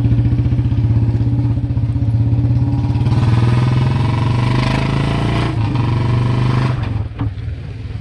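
Royal Enfield Bullet Electra's single-cylinder engine running loud through an aftermarket 'bada Punjab' silencer, a steady rapid thump. It gets stronger about three seconds in, then drops away as the throttle closes near the end.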